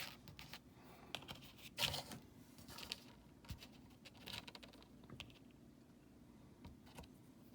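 Small plastic model figures being handled and stood up on a tabletop: scattered light taps and clicks, the loudest at the start and about two seconds in.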